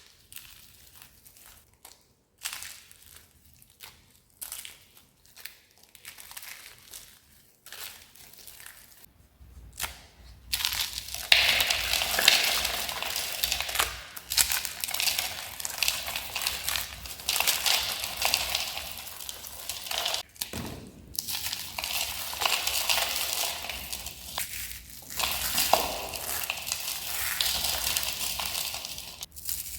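Dry, crispy soap being crushed and crunched. It starts with scattered small crackles, then about a third of the way in becomes dense, loud crunching, with a brief pause about two-thirds through.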